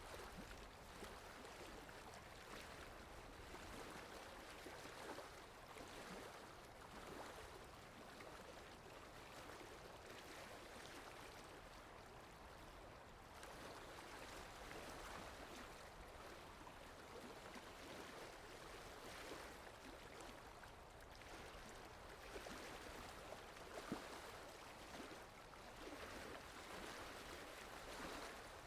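Water lapping gently in the wind, heard faintly as a soft wash that swells and eases every second or two, with a low rumble underneath. One brief, sharper knock comes near the end.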